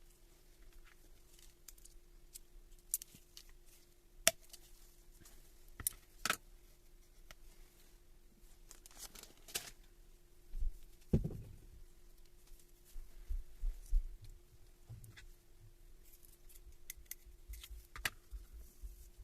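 Scattered sharp clicks and a few dull knocks, like small metal parts being handled on a workbench, over a faint steady hum.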